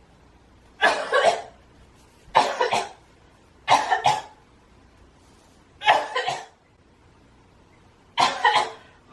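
A young woman faking a harsh cough for a coughing-up-blood prank: five fits of two or three quick coughs each, about every one and a half to two seconds.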